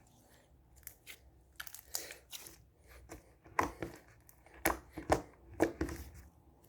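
Hands squeezing and pressing a stiff, dough-like clay slime, giving irregular sticky clicks and crackles that grow louder and more frequent in the second half.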